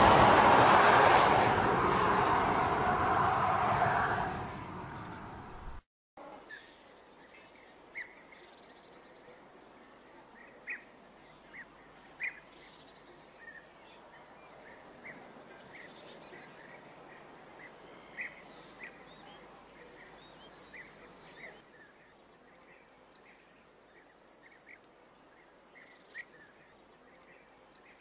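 A car goes by with a loud rushing sound that fades away over the first few seconds. After a brief break, crickets trill steadily and faintly, with scattered short bird chirps.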